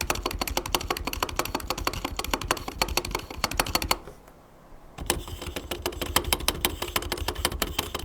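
Fast typing on a Corsair K70 MAX mechanical keyboard with MGX magnetic linear switches, a quick stream of keystroke clacks. There is a pause of about a second near the middle, then the typing resumes.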